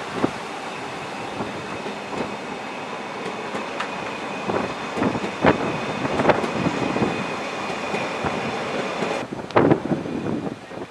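Narrow-gauge passenger coaches rolling past on steel rails, their wheels clicking irregularly over the rail joints, with a faint steady high squeal. The sound grows quieter near the end as the last coach draws away.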